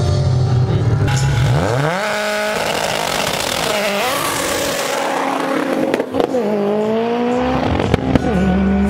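Car engine launching hard on a quarter-mile drag run: a steady low note, then a steep rising rev about a second and a half in. The pitch drops sharply at gear changes about four and six seconds in, then climbs more slowly in the higher gears.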